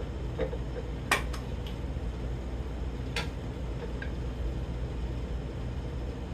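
Two sharp metal clicks, about a second in and about three seconds in, with a few fainter ticks, from hand tools being handled on a transmission case, over a steady low hum.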